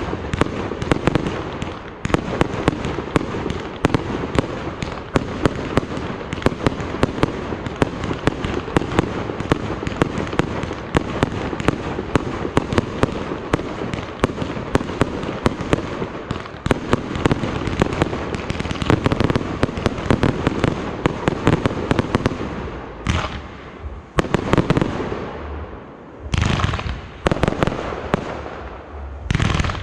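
Fireworks display: a dense barrage of rapid bangs and crackling that thins out after about 22 seconds into a few separate bursts with short gaps between them.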